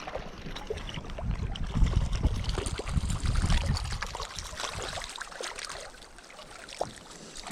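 Water splashing and trickling as a small brown trout is fought and brought in on the line, irregular and busiest in the first few seconds, then easing off.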